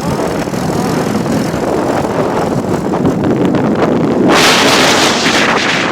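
Wind rushing over the microphone with road noise from a moving vehicle, and a harder gust of wind noise hitting about four seconds in for a second and a half.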